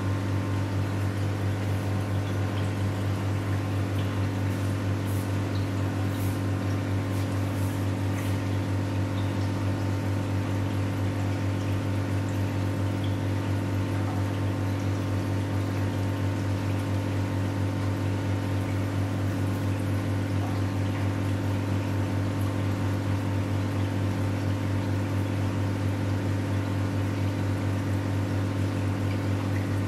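Aquarium pump running with a steady low electrical hum, over the bubbling of the tank's air stones.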